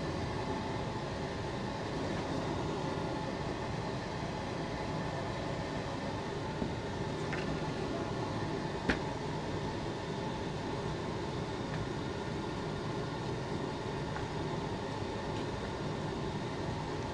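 Steady background room noise with no clear pattern, broken by two faint ticks about a third and a half of the way through.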